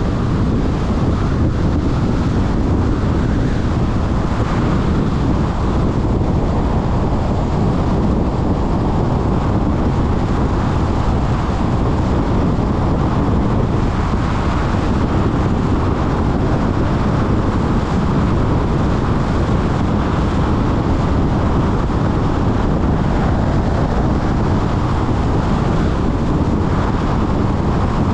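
Steady rush of wind and road noise from a moving car, with wind buffeting the microphone.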